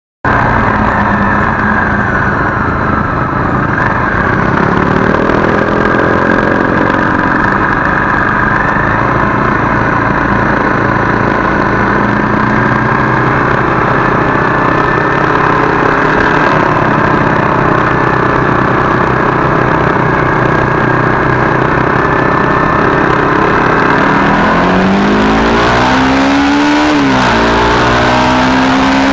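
Honda CRF250Rally's single-cylinder four-stroke engine running steadily while riding along. Near the end the engine pitch rises and falls repeatedly as the rider accelerates and shifts.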